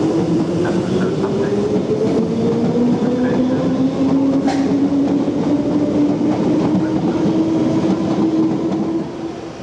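London Underground train moving along a station platform: its traction motors whine, the whine rising in pitch as the train gathers speed, over the rumble of wheels on the rails and a few clicks.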